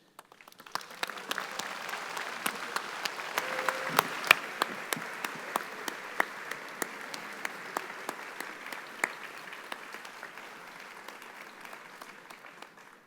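Audience applauding, swelling over the first few seconds and tapering off near the end, with single sharp claps from a nearby clapper standing out above the crowd.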